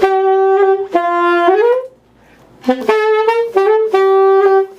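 Alto saxophone playing two short phrases. The first ends in a doit, its last note sliding upward and fading away, and the second follows after a brief pause.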